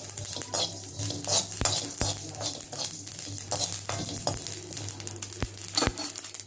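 Metal spatula scraping and stirring whole spice seeds being roasted in a kadai, with repeated scraping strokes, the seeds rattling and sizzling against the pan. A few sharper knocks of the spatula on the pan come through, two of them near the end.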